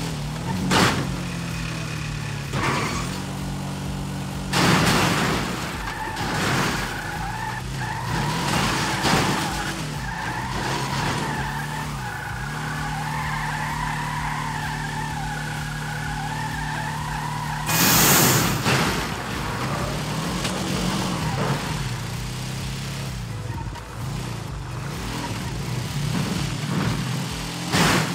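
A vehicle's engine running at a low, fairly steady pitch. A wavering high squeal runs through the middle, and several sudden loud bangs or thumps come through, the loudest about 18 seconds in.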